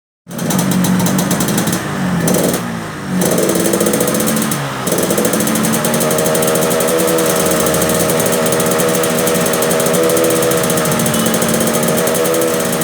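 Yamaha RX-King single-cylinder two-stroke motorcycle engine running with a rough, snoring 'ngorok' note. It rises and falls in speed a couple of times in the first five seconds, then holds a steady speed.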